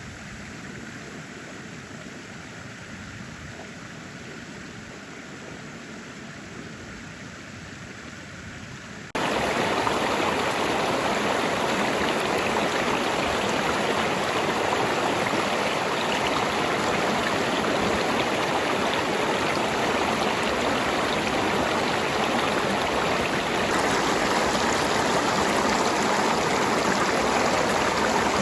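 Steady rush of running water, like a stream. About nine seconds in it jumps abruptly to a louder, fuller rush that stays steady.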